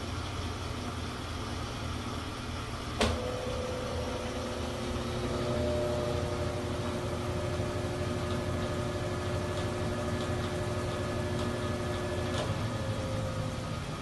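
Brastemp Ative BWL11 top-loading washing machine running with a steady hum. A sharp click sounds about three seconds in, after which a faint steady whine runs alongside the hum.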